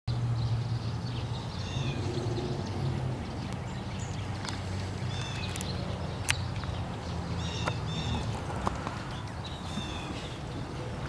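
Outdoor background: a steady low hum with small birds chirping now and then, and a few faint clicks.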